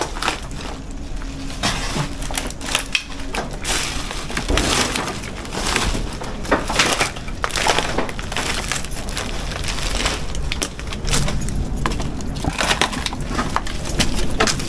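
Footsteps crunching and crackling over rubble and dry debris, a string of irregular snaps and crunches as people walk through the wreckage.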